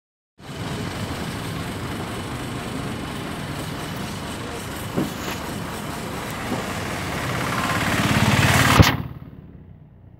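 Engine and road noise of a moving bus heard from inside, steady, then swelling for a couple of seconds to a knock near the end, after which it drops away sharply to a low hum.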